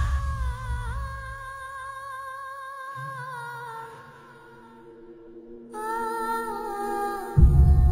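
Film background score: a slow, held wordless vocal melody over a low drone. It dies down almost to nothing in the middle, comes back, and a deep boom sets in near the end.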